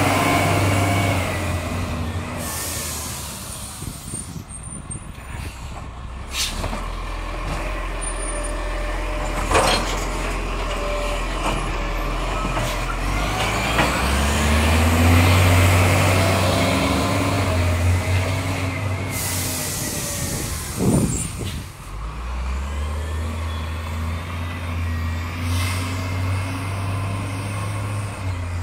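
Side-loader garbage truck's diesel engine running and revving up in spells, with a few short sharp air-brake hisses, as the truck works at the kerb and pulls away.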